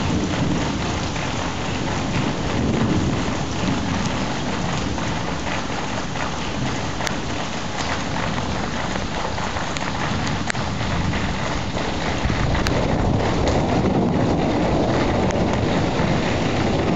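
Heavy rain falling steadily during a thunderstorm, as an even hiss. About twelve seconds in, a deeper low rumble swells and the sound grows a little louder.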